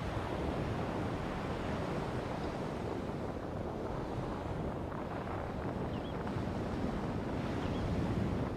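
Strong wind buffeting the microphone over ocean surf washing in, a steady rushing noise.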